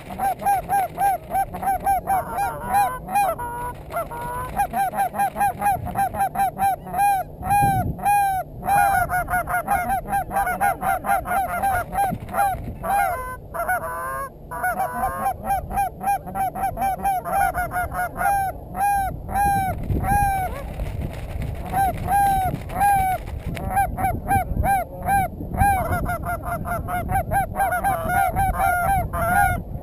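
Geese honking continuously, several calls a second, overlapping.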